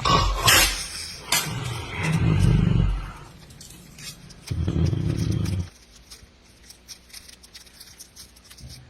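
A person snoring: two low, rasping snores a couple of seconds apart, after which the snoring stops. A loud scraping noise comes in the first second, with a sharp click just after it.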